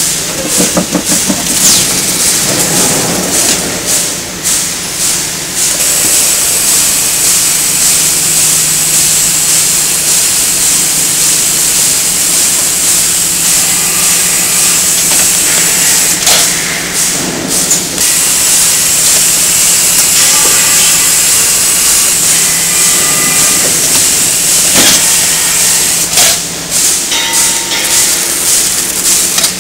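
Carton packing and sealing machinery on a bottle-packing line running: a loud steady hiss over a low hum, with bursts of clattering knocks in the first few seconds, again about halfway through and near the end.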